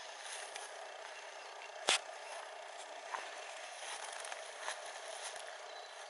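Steady outdoor background hiss, with one sharp click about two seconds in and a few faint ticks.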